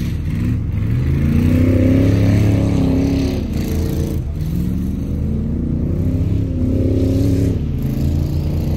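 Off-road vehicle engine revving, its pitch rising and falling in two surges, one peaking about two seconds in and another about seven seconds in.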